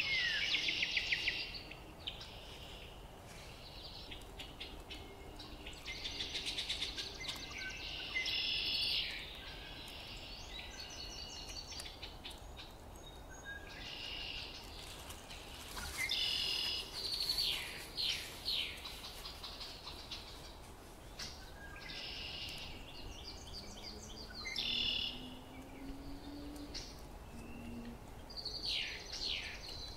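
Songbirds singing outdoors, short trilled and sweeping phrases repeating every few seconds, with more than one bird overlapping. A faint low hum lies beneath them and briefly rises in pitch about two-thirds of the way through.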